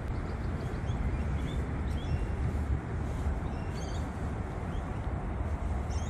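Birds giving short, high chirps every second or so over a steady low rumble.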